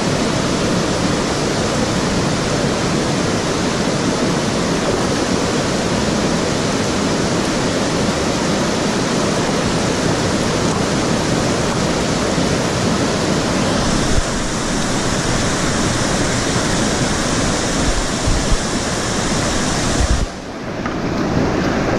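Steady rushing of white water pouring over a river weir and churning in the stopper below, heard close up from the water. The sound goes briefly muffled and quieter about twenty seconds in.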